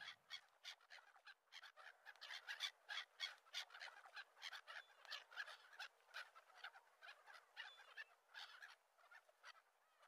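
Faint, irregular short chirping calls of an animal, about two to three a second, a little louder a couple of seconds in.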